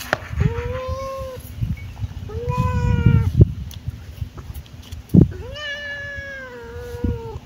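A kitten meowing three times, the third call the longest. Low rumbling noise and a couple of sharp knocks come underneath.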